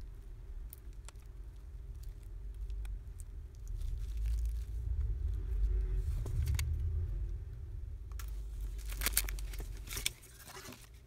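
Hands handling an opened smartphone housing and small parts on a work table: a low rumble swells through the middle, then a flurry of clicks, rustles and crinkles comes near the end.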